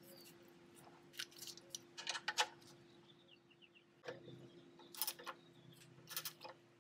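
Metallic clicks and clinks of a ratchet wrench and 13 mm socket being fitted onto and worked on a van's oil pan drain plug, in a few short clusters.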